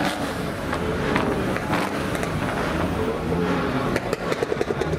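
Car engine running as the car rolls by, with a quick run of evenly spaced pulses near the end.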